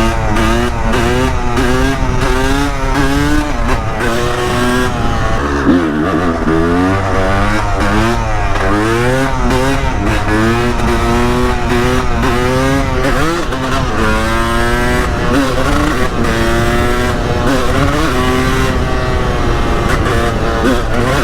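Honda CR250R single-cylinder two-stroke dirt bike engine revving up and falling back again and again, with the clutch used to lift the front wheel into wheelies.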